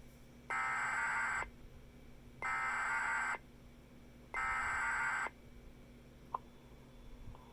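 Emergency Alert System SAME data header: three bursts of digital data tones, each about a second long with about a second's pause between them, marking the start of a National Weather Service tornado warning. A single very short beep sounds about six seconds in.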